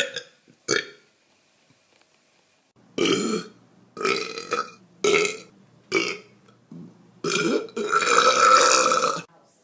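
A person belching repeatedly: a short burp near the start, then from about three seconds in a quick string of loud belches, ending in one long drawn-out belch about a second long.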